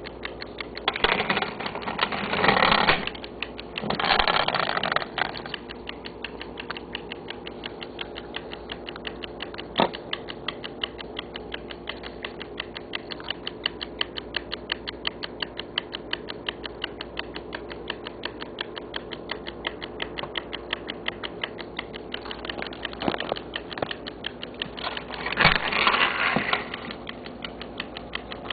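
Clockwork mechanism of a vintage Halda mechanical taximeter ticking steadily, several ticks a second. Louder mechanical rattling comes near the start and again near the end.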